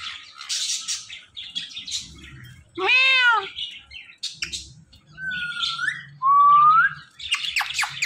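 Indian ringneck parakeet calls: a drawn-out arching call about three seconds in, harsh squawks, then two rising whistles and a quick run of short chirps near the end.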